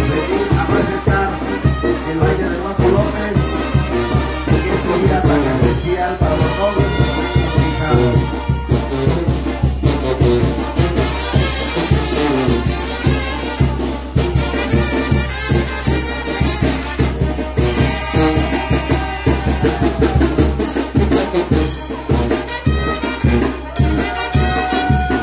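Brass band music: trumpets and trombones playing a dance tune over a steady drum beat.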